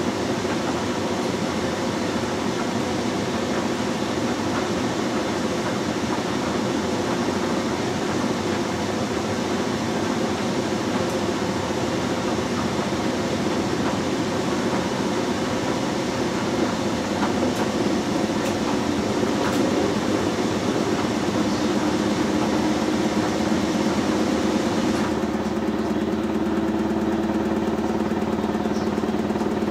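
LG direct-drive front-loading washing machine in its first interim spin, the drum turning with a steady mechanical whir and hum. About 25 seconds in the sound changes: the high hiss stops and a steadier, lower hum comes in.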